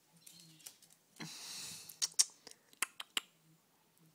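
A short rustle about a second in, then a handful of sharp, irregular clicks: a pet crow's beak and claws tapping on a tiled floor as it takes and handles bread.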